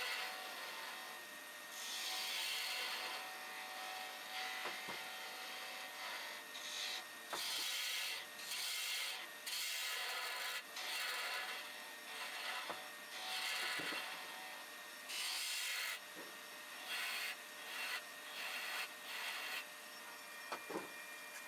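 Abrasive rubbing on wood in repeated strokes of about half a second to a second and a half each, with short pauses between them, as when sanding or rasping a wooden workpiece.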